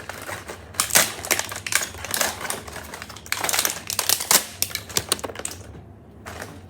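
Rapid, irregular clicking and crinkling from hands handling and opening a new toy's plastic packaging; it dies away near the end.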